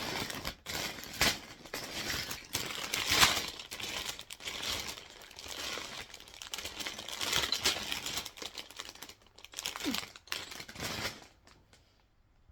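Plastic LEGO parts bags being handled and rummaged through, a busy crinkling with small clicks and rattles, stopping about a second before the end.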